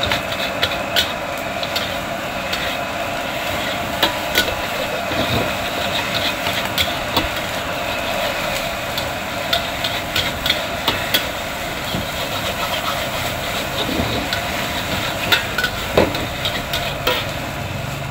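Metal spatula scraping and clanking against a large wok during stir-frying, with irregular sharp knocks several times a second in bursts, over a steady rushing noise and sizzling from the hot pan.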